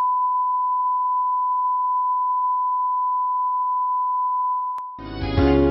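Steady 1 kHz line-up test tone of the kind that runs with colour bars, cutting off with a click near the end. Music starts right after it.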